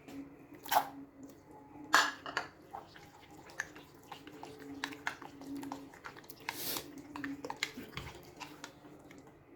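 Kitchen utensils clinking and knocking against dishes: two sharp clinks about a second apart near the start, then a run of lighter taps and clicks with a brief scraping rustle partway through.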